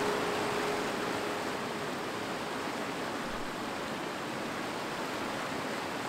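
Mountain stream rushing steadily. A held note of background music fades out in the first two seconds.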